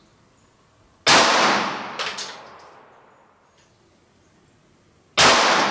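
Two shots from a Glock 43 pistol firing 9mm +P rounds, about four seconds apart: the first about a second in, the second near the end. Each is a sharp crack that rings off over about a second, and a few lighter clicks follow the first.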